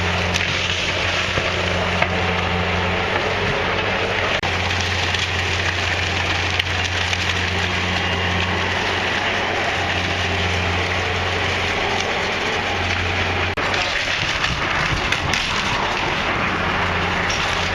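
Timber framing of an old wooden house being demolished, cracking and splintering with scattered knocks, over a steady low drone.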